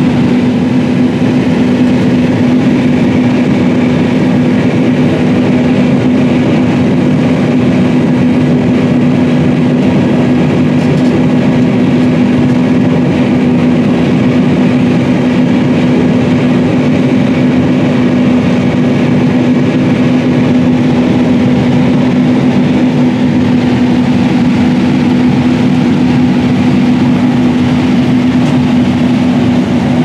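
John Deere S790 combine heard from inside its cab, running while harvesting and unloading corn into a grain cart: a loud, steady machine drone with a constant hum over the rumble of the engine and threshing and unloading machinery.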